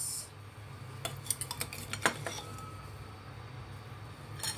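A few light clicks and clinks of dishes and a glass jar being handled on a tabletop, the sharpest about two seconds in, over a steady low hum.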